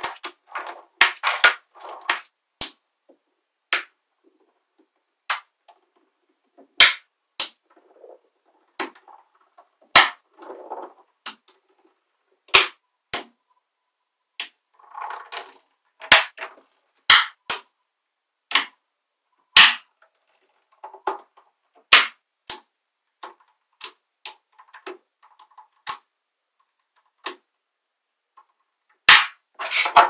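Magnetic balls snapping together with sharp clicks as strips of them are laid and pressed onto a stacked block, single clicks coming irregularly every half second to second and a half. Between the clicks there is a softer rattle of balls rolling and rubbing against each other.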